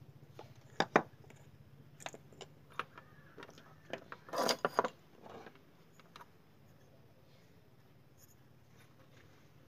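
Small clicks and taps of LED bulb parts being handled and fitted together, plastic housing, driver board and metal cap, with a dense cluster of clicks about four seconds in. After that only a faint low steady hum remains.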